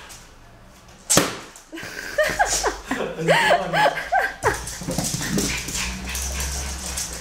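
Jack Russell Terrier giving a quick run of short, high, excited whining yips, about five or six in a row, after one sharp smack about a second in.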